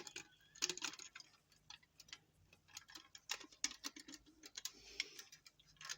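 Faint, irregular light clicks and taps of diecast model car parts being handled and pushed together while the body is lined up on the chassis.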